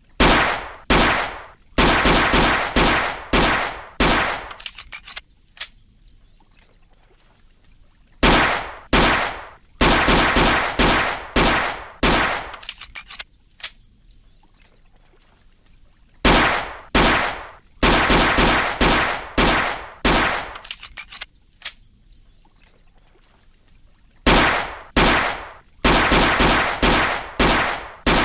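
Walther P38 semi-automatic pistol firing in strings of about nine or ten shots over some four seconds, each shot with a short echo, the strings repeating about every eight seconds. Faint bird chirps sound in the pauses.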